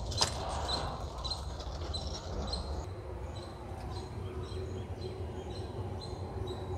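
Outdoor ambience with a small bird calling one short high note over and over, about two to three times a second, fading somewhat in the second half, over a steady low rumble. A single light click sounds just after the start.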